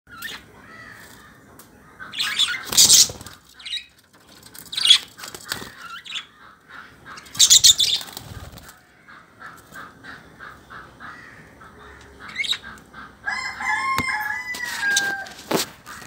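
Caged budgerigars chirping and chattering, with three loud bursts of wing flapping in the first half and a longer falling call near the end.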